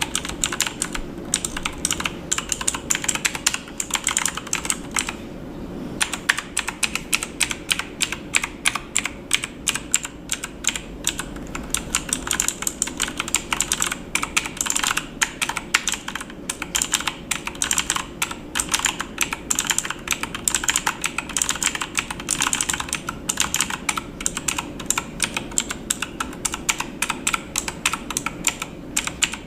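Fast, continuous typing on a computer keyboard: a dense, irregular stream of key clicks with a short break about five seconds in.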